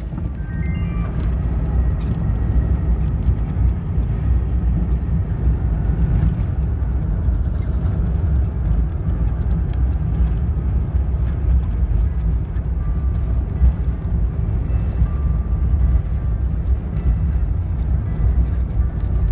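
Airbus A350-1000 airliner on its landing roll-out, heard from inside the cabin: a loud, steady, low rumble from the wheels on the runway and the engines as the aircraft slows with its spoilers raised.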